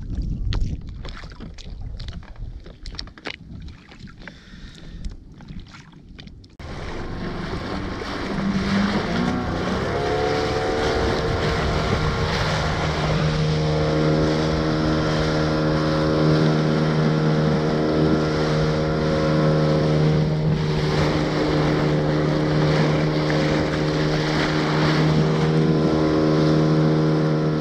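Wind buffeting the microphone at first, then an outboard motor pushing an inflatable boat at speed: it revs up a few seconds after it comes in and then runs steadily at high revs, with the rush of wake and spray over it.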